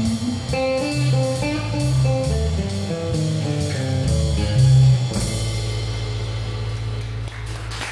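Live blues-rock band of electric bass, acoustic guitar and drum kit playing the closing instrumental bars of a song. About five seconds in, the band lands on a final held chord that rings out.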